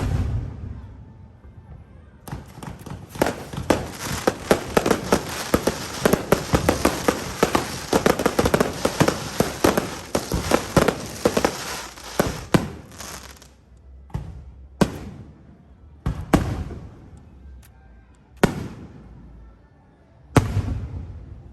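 Fireworks going off: a dense barrage of rapid crackling bangs for about ten seconds, then single loud bangs every second or two.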